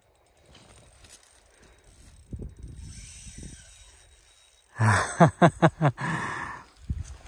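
Fishing reel ratcheting as line is wound in against a hooked pike, with a run of about five loud rasping pulses about five seconds in.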